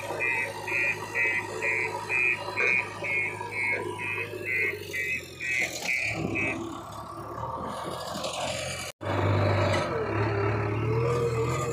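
JCB 3DX backhoe loader's diesel engine running steadily, then revving up near the end after a brief cut. Over the first half there is a fast, high-pitched pulsing of about three beats a second.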